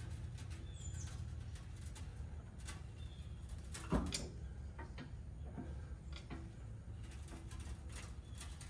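Scattered light clicks and one louder knock about four seconds in, over a low steady rumble: hand tools and metal parts being handled while working under a pickup truck.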